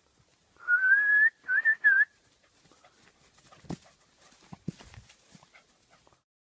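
Dog whining in a high, thin pitch: one longer note that rises slightly, then two short ones. A few faint clicks follow.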